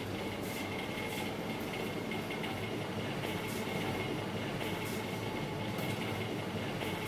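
Steady supermarket background hum with a thin high tone, from refrigeration and store machinery, with faint rustles now and then.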